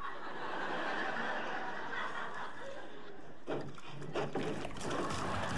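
Studio audience laughing throughout, with a few sharp knocks about two-thirds of the way in.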